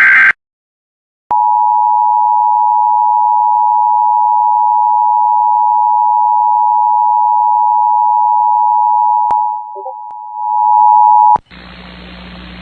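Emergency Alert System two-tone attention signal broadcast over FM radio: two steady tones sounding together just under 1 kHz for about ten seconds, with a brief dip near the end before they cut off. It comes just after the tail of the warbling digital header burst, and is followed by a steady radio hiss with a low hum ahead of the spoken alert.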